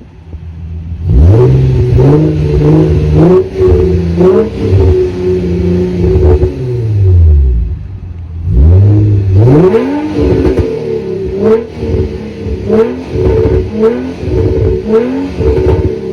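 Infiniti G35's 3.5-litre V6, fitted with test pipes, revved hard in two runs of throttle blips, the pitch climbing and falling, with crackles and pops from the exhaust. The first run starts about a second in and the second about halfway through.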